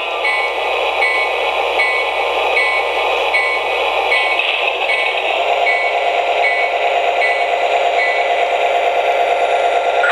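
Lionel LionChief Plus GP7 O-gauge locomotive running with its RailSounds diesel engine sound and bell, which rings about once every 0.8 s over the rattle of the running train. About halfway in, the diesel sound settles into a steadier, higher drone.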